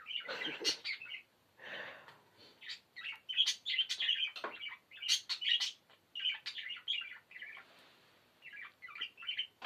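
Budgerigars chattering and warbling in their cage: quick runs of chirps and squeaks in bursts, with short pauses between.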